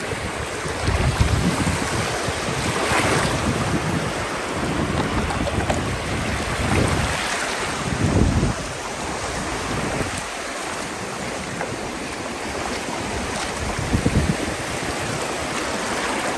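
Small waves washing in over shallow water at the shoreline, swelling and falling, with wind buffeting the microphone.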